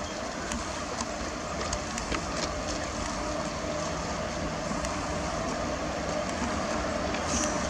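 Passenger train hauled by a WAP-4 electric locomotive approaching along the track: a steady rumble of wheels on rail that slowly grows louder, with a few faint clicks in the first few seconds.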